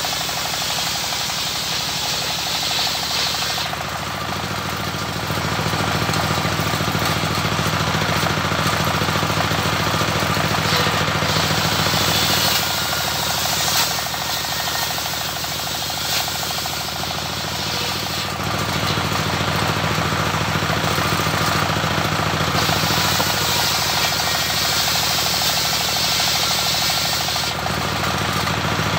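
Homemade circular sawmill running: a single-cylinder stationary diesel engine clattering steadily while driving a circular saw blade that rips waru-wood planks. The high cutting noise swells and fades several times as boards are fed through the blade.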